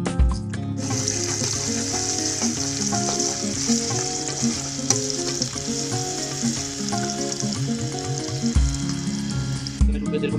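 Sliced onions sizzling as they fry in hot oil in a wok, stirred with a spatula, over background music. The sizzle starts about a second in and stops shortly before the end.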